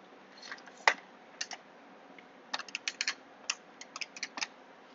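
Faint computer keyboard typing: a few scattered key clicks, then a quick run of about fifteen clicks over two seconds.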